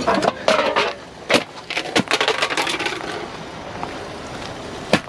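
Objects in a dumpster being shifted and handled: a run of irregular knocks and clatters for the first few seconds, then steady background noise with one more knock near the end.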